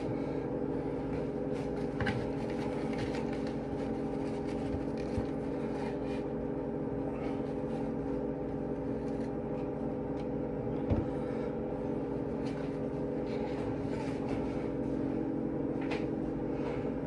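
Steady hum made of several held tones, like a running kitchen appliance or fan, with a few faint clicks and knocks now and then.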